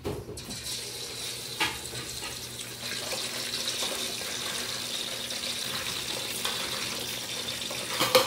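Chicken pieces sizzling as they fry in hot oil in a pot, a steady hiss that grows a little louder after about three seconds. A sharp click about a second and a half in.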